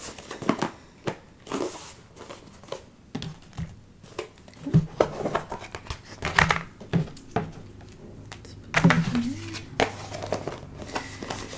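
Irregular crinkling and rustling with scattered light taps and clicks, from embroidery floss and its storage being handled and sorted.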